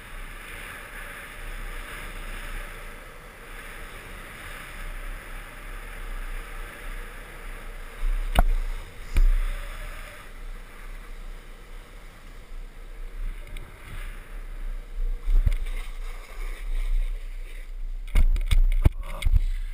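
Wind rushing over the microphone and longboard wheels rolling on asphalt at downhill speed, a steady rush with deep buffeting rumble. Two sharp knocks come near the middle and several more near the end.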